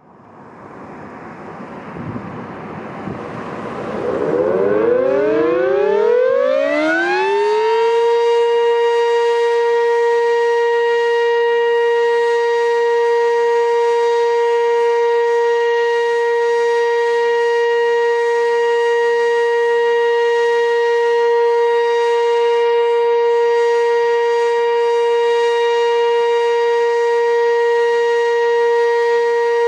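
Sentry 15V2T outdoor warning siren winding up: a rushing sound as the rotor spins up, then the pitch rises for a few seconds and settles about eight seconds in into a loud, steady wail held without a break.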